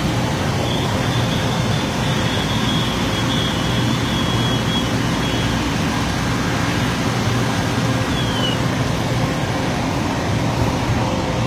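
Fire engines' diesel engines running steadily at the scene: a continuous loud drone with a low hum.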